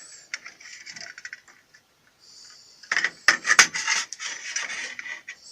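Metal clicking and scraping from a wrench turning the screw of a homemade cylinder-liner puller as a stuck liner is drawn out of an engine block. Light scattered clicks come first, then a louder run of clicks and rasping about three seconds in.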